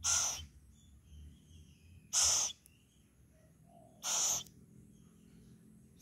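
Young owl giving three short hissing screeches, about two seconds apart, typical of an owlet's begging call.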